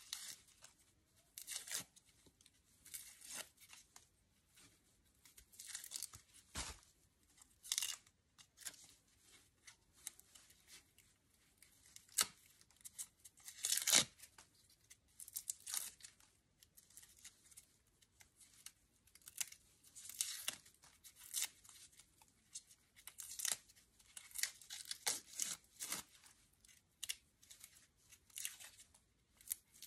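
Dry, papery outer scales of an amaryllis bulb being scraped with a knife and torn away by hand: a run of irregular rustling tears, one sharper than the rest about halfway through.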